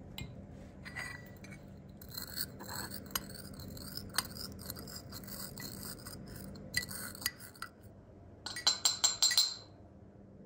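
Brass pestle grinding saffron threads in a small brass mortar: a scraping, clicking grind with sharp metal ticks, then near the end a quick run of about six loud ringing metal strikes.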